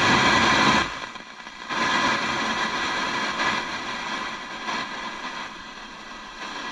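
Radio static from a newly installed PCCM+ head unit, hissing through the car's stock speakers. It is loud at first, drops out about a second in, then returns a moment later somewhat quieter and slowly fades.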